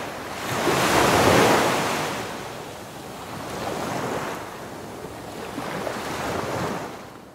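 Rushing, surf-like water whoosh of an animated logo sting. It swells to its loudest about a second in, then rises twice more, more softly, and fades out at the end.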